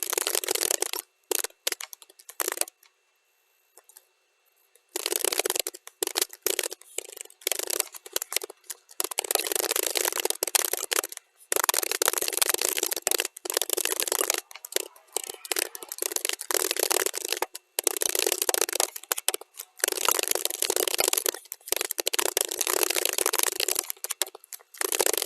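Computer keyboard typing, sped up to double speed: dense runs of rapid key clicks, with a pause of about two seconds near the start and short breaks between runs.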